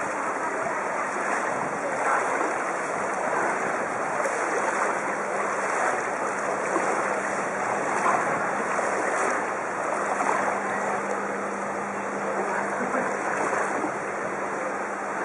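Steady rushing and splashing of floodwater churned by a bicycle being ridden through a flooded street, with some wind on the microphone.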